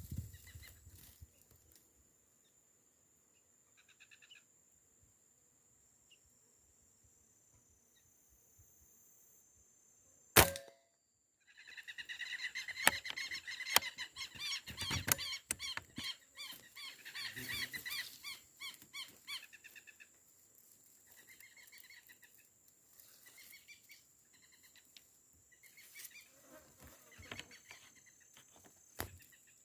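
A single sharp shot from a Beeman 1336 5.5 mm PCP air rifle about ten seconds in, followed by a flock of wild ducks (paturis) calling in quick, high, repeated notes that thin out over the next fifteen seconds.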